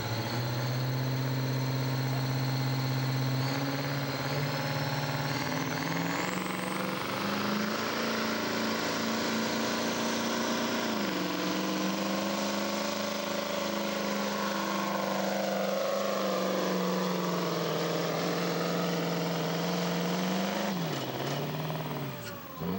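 Mack semi tractor's diesel engine making a truck pull: it revs up from a lower note a few seconds in, with a high whistle rising over it, and holds at high revs under heavy load for about fifteen seconds. Its pitch sags and wavers, then falls away near the end.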